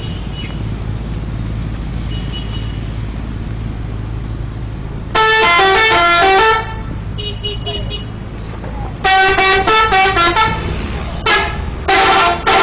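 Indonesian bus telolet horn playing a quick stepped melody of several notes for about a second and a half about five seconds in, then a series of short melodic toots near the end. A steady low engine rumble runs underneath.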